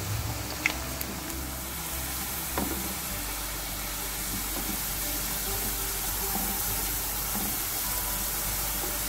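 Sliced onions sizzling steadily in plenty of hot oil in a pan as they turn brown, with a spatula stirring them and clicking sharply against the pan twice in the first few seconds.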